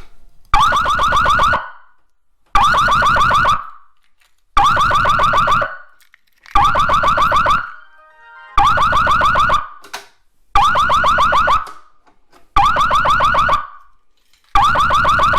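Fire alarm sounder going off after its manual pull station is pulled. A loud electronic tone pulses about one second on, one second off, eight times.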